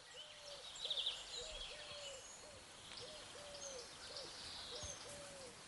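A dove cooing in a repeated three-note phrase, short, long, short, about every second and a half, with small birds chirping high above it.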